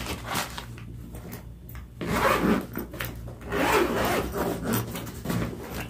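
Zipper on a fabric backpack being pulled shut, a rasping sound in two stretches, one about two seconds in and a longer one from about three and a half seconds, with fabric rubbing as the pocket is closed.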